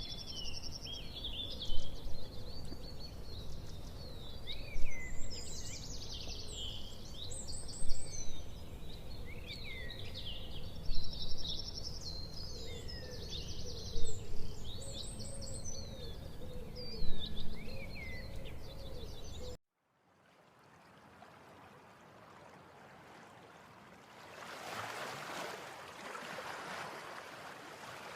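Birds chirping and twittering in quick rising and falling calls over a steady low rumble, with a louder burst of chirps about every three seconds. It cuts off abruptly about twenty seconds in to near quiet, and a faint hissing swell rises near the end.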